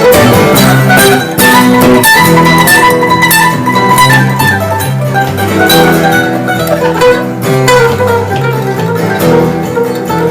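Bluegrass-style acoustic string music with guitar and mandolin picking over a walking bass line.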